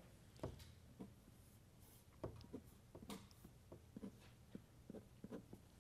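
Near silence: lecture-room tone with a low steady hum and a scattering of faint small ticks and taps.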